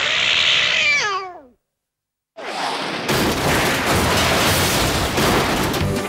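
Cartoon sound effects: over a loud noisy rush, a cat's yowl slides steeply down in pitch and cuts off about a second and a half in. After a brief total silence, a loud, even noisy rush comes back and runs on.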